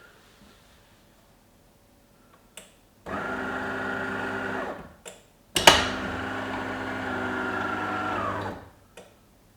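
De'Longhi Magnifica bean-to-cup coffee machine's water pump buzzing in two runs, one short and one about three seconds long, with sharp clicks before, between and after them, the loudest as the second run starts: the machine rinsing through on its first switch-on.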